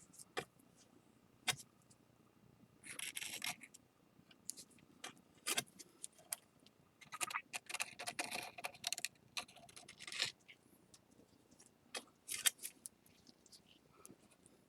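Palette knife scraping and tapping on the edges of a ceramic plate, removing excess flour-and-lacquer paste from a freshly glued break. Quiet, irregular short scrapes and sharp clicks throughout.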